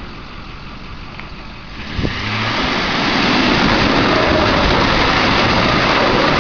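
Pickup truck engines running, then about two seconds in an engine revs hard and stays at high revs as the stuck truck's tyres spin in deep mud, flinging it; a short knock comes just as it picks up.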